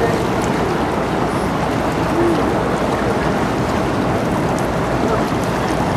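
Steady low rumble and water wash of the Azoresborg, a 143 m general cargo ship, passing close by. A short low pitched note sounds about two seconds in.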